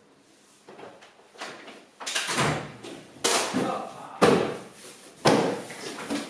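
A run of four sharp knocks or thuds about a second apart, each with a short ringing tail in the room.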